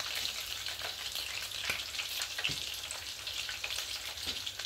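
Red fish frying in hot oil in a pan: a steady sizzle with scattered crackles and a few sharper clicks.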